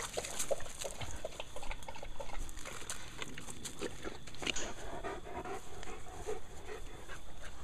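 German shepherd panting close to the microphone, with irregular rustling and scuffing as the camera moves.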